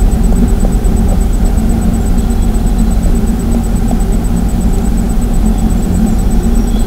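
Steady low rumbling noise from a nestbox camera's microphone, with faint small scratches as a female blue tit shifts the nesting material, and a thin steady high whine from the camera electronics.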